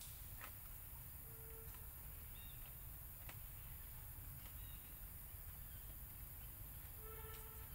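Faint outdoor background: a steady low rumble with a few faint, short animal calls, one at about a second and a half and a fuller one near the end, plus occasional soft clicks.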